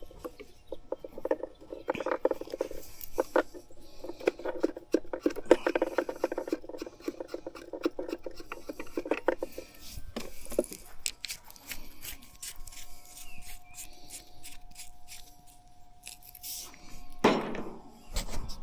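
Metal tools and fittings being handled, with dense clinking and rattling for several seconds, then scattered clicks. A short loud knock near the end.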